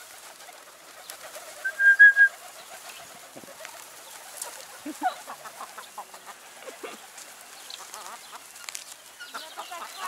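Flock of feral pigeons cooing in a steady low murmur, with scattered wing flaps and scuffles. About two seconds in, a short high three-pulse bird call is the loudest sound.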